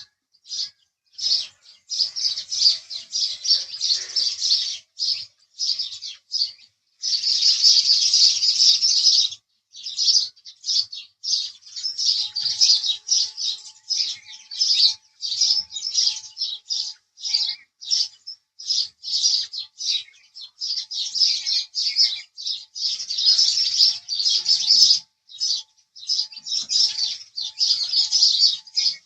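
House sparrow chirping in a rapid, nearly continuous stream of short, high chirps, with a denser unbroken chatter a few seconds in.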